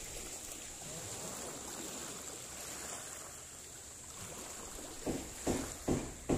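Sea ambience of gentle waves and wind at the shoreline. From about five seconds in, a regular rhythm of short, soft strokes begins, about two and a half a second, louder than the background.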